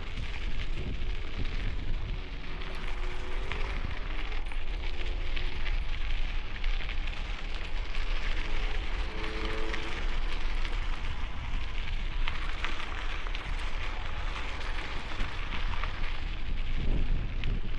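Wind buffeting the microphone of a helmet-mounted Insta360 X5 camera during a bicycle ride on a gusty day: a steady low rumble under a crackling hiss.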